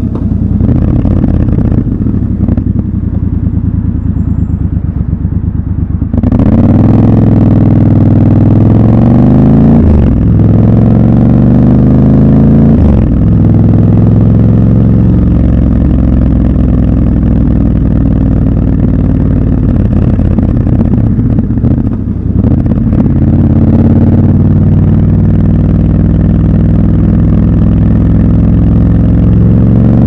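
Triumph Scrambler 1200 XC's parallel-twin engine, low and steady for about six seconds, then pulling away with its pitch rising through two upshifts. It then cruises steadily, with a brief drop in the engine note as the throttle closes about three-quarters of the way through.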